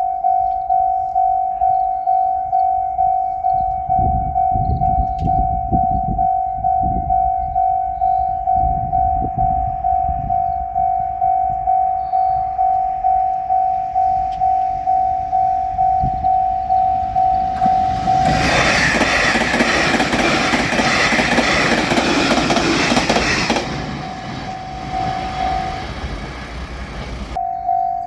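Japanese level-crossing warning bell ringing in a steady repeating ding about twice a second. A JR Shikoku 8000 series electric limited express train approaches: its running noise builds over several seconds, then passes loudly for about five seconds and drowns out the bell. The bell comes back faintly as the train clears and rings clearly again near the end.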